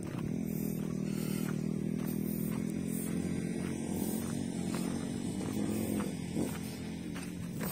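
Small engine running steadily with a droning hum, pitch rising slightly and dropping back near the end, with faint scattered clicks.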